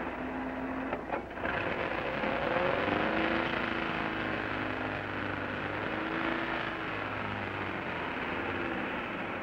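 Old open touring car's engine running as the car pulls away, with a couple of knocks about a second in, heard through the hiss of an old film soundtrack.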